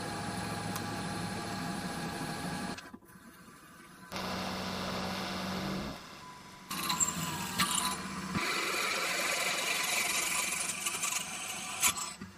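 Small machine tool running and cutting metal, heard as a string of short clips that each start and stop abruptly. The first is a steady motor hum with a few held tones, the next a lower hum, and the last, louder stretch a rough cutting noise with a few sharp clicks.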